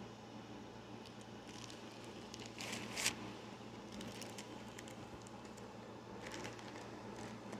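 Faint rustling and crinkling of something being handled, with a sharper crackle about three seconds in and another short rustle near the end.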